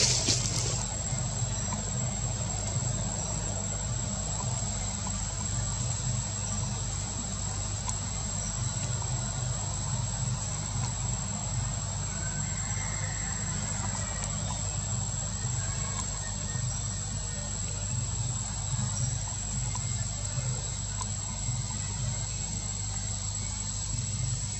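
Steady outdoor ambience: a constant high-pitched insect drone over a low, steady hum. There are no monkey calls.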